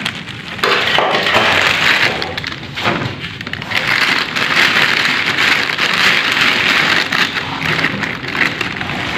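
Plastic sheeting and wrappings crinkling and rustling as gloved hands sift through remains: a dense crackling hiss that swells and eases in waves.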